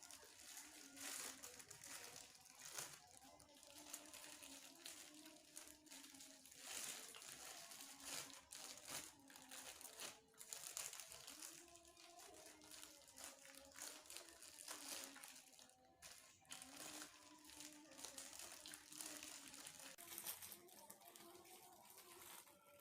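Plastic wrapping crinkling and rustling in irregular bursts as soft bread rolls are handled and eaten close to the microphone.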